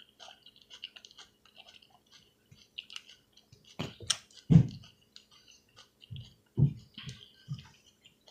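A person chewing salad close to the microphone: small wet crackling mouth clicks and crunches, with several louder low thumps from about halfway on, the strongest just past the middle.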